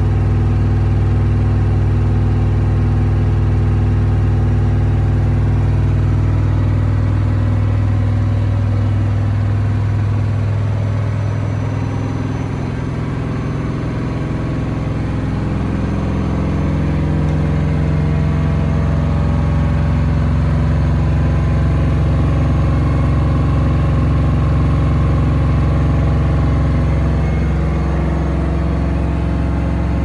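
Candy Smart front-loading washing machine in its spin cycle, set to 1400 rpm: a steady, loud motor and drum hum. It dips slightly about halfway, then settles back at a slightly different pitch.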